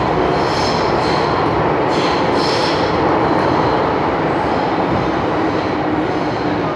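MTR M-Train subway car running at speed through a tunnel, heard from inside the passenger car: a loud, steady rumble of wheels and rails with a faint low hum. High wheel squeals come and go about half a second in and again around two to three seconds in.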